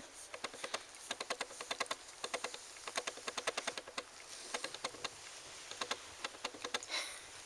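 Ragdoll kittens' paws pattering on a looped carpet, a run of rapid light clicks in irregular clusters of several a second as they scamper, like soft typing.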